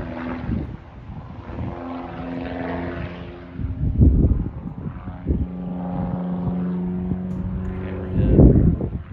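Aerobatic propeller plane's engine droning overhead through a vertical smoke climb, its note shifting in pitch. Two loud low rumbles, about four seconds in and near the end, are the loudest sounds.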